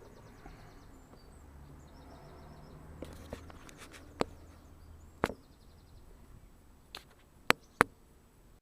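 A series of sharp knocks and clinks, as of hard objects being handled and set down. The loudest are two close together near the end.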